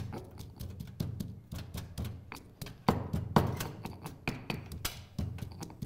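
Granite mortar and pestle pounding garlic and ginger into a paste, a run of irregular stone-on-stone knocks, with a couple of louder strikes about three seconds in.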